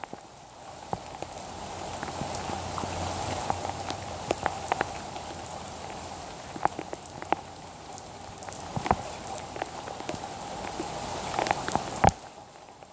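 Heavy rain falling steadily, with many sharp taps of drops striking close by. One louder tap comes about twelve seconds in, after which the rain sound dies down.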